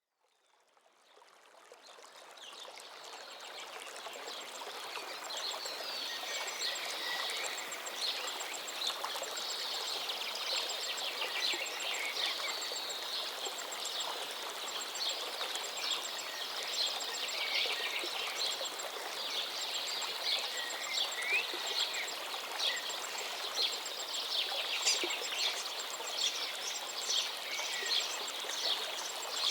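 Small songbirds chirping and trilling over the steady rush of a flowing river, fading in over the first few seconds.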